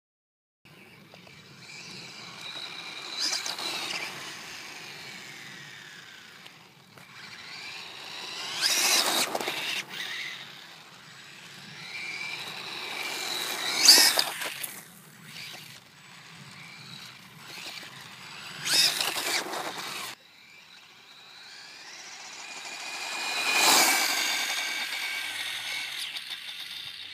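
Nikko Bison RC buggy converted to a 3300kv sensorless brushless motor and 60 A controller on a 2S lipo, its motor whining high as it speeds past on asphalt with tyre noise. It makes about five passes, each swelling to a peak and fading, the whine dropping in pitch as the buggy goes by.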